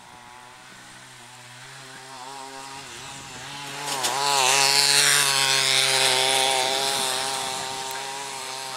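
The mechanical lure (the 'hare') of a greyhound track whirring along its rail. It is a steady machine whine with a rasping hiss on top that builds, is loudest as it passes about four seconds in with a wobble in pitch, then fades away.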